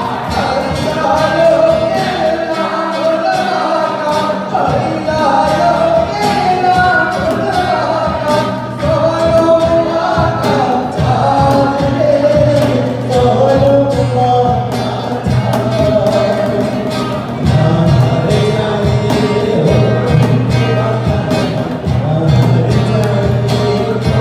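Live acoustic band playing a song: a singer over acoustic guitar, with cajon hits keeping the beat.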